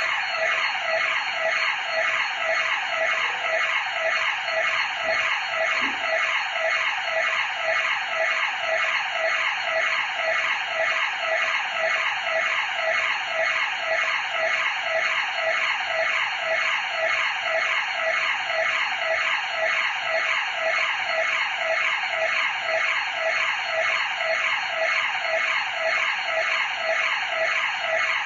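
House burglar-alarm siren sounding continuously indoors, a rapid electronic wail whose pitch sweeps downward over and over, several times a second: the intrusion alarm has been triggered and is still going off.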